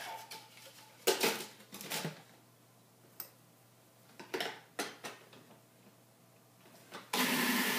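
Clinks and knocks of a glass being set down and the plastic lid of a food processor being fitted. About seven seconds in, the food processor's motor starts and runs loud and steady, blending cookie crumbs and oil toward a paste.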